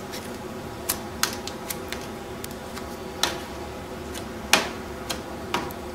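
Putty knife clicking and tapping against glass and lead came while putty is pressed into the joints: scattered irregular sharp clicks, the loudest about three and four and a half seconds in.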